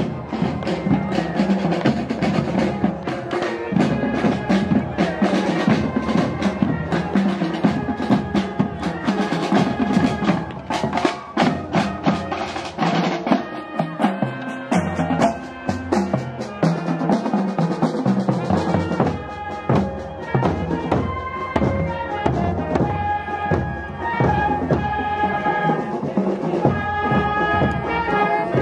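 Marching band in a parade: a drum line beating marching drums, joined about two-thirds of the way through by trumpets and saxophones playing a tune in clear held notes.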